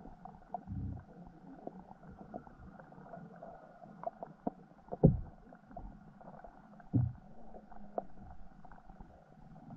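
Muffled underwater sound picked up by a camera in its waterproof housing: a few dull low thumps, the strongest about five seconds in, and scattered small clicks over a faint steady hum.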